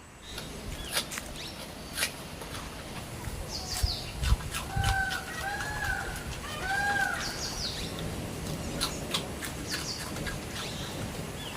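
Chickens clucking, with a run of three arched calls midway and high, short bird chirps around them, plus scattered light clicks and knocks.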